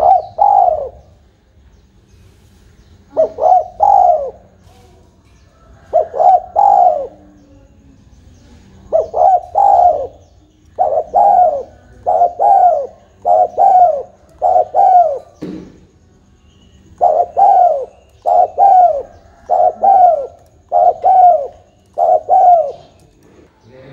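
Spotted dove cooing: rounded coos of about a third of a second each, first in short groups of two or three with pauses between, then in longer unbroken runs.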